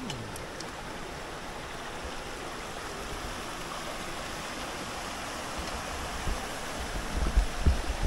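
Steady rushing of a waterfall's falling water, an even hiss with no let-up. A few dull low thumps come in near the end.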